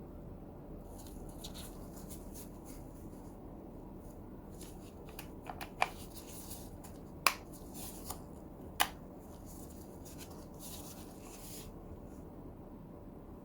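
Packaging and a cordless right-angle impact wrench being handled during an unboxing: light rustling and rubbing, with three sharp clicks or taps about a second and a half apart in the middle and a couple of softer ones between them.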